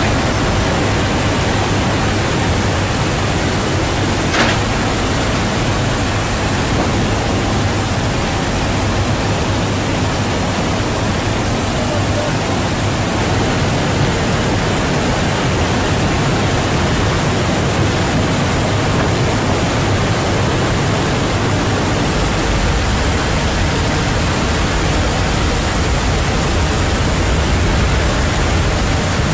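Loud steady rush of wind through the open paratroop door of a C-130J Super Hercules in flight, over the low drone of its turboprop engines. A single brief knock sounds about four seconds in.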